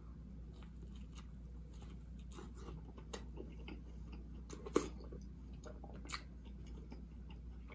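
A person chewing a mouthful of burger close to the microphone: faint wet mouth clicks and smacks, with a couple of sharper smacks about five and six seconds in.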